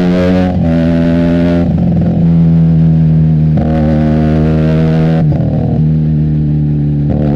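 Benelli TNT 300 parallel-twin engine through an Austin Racing aftermarket exhaust, running under throttle while riding. The exhaust note holds a steady pitch in stretches and breaks off briefly about four times, each break a short, rough, crackly gap as the throttle closes or a gear changes.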